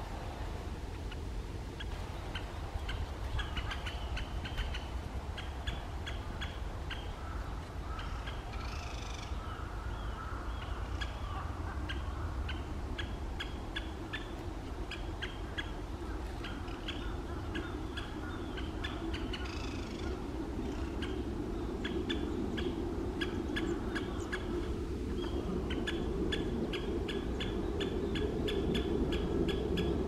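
Great spotted woodpeckers giving short, sharp 'kik' call notes, repeated irregularly a few times a second during a breeding-season chase. Another bird sings briefly twice, and a low rumble grows louder in the second half.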